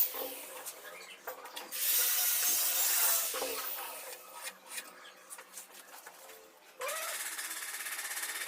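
A power tool running in two bursts, about two seconds in and again near the end, with a hissing, grinding noise and a few short knocks between.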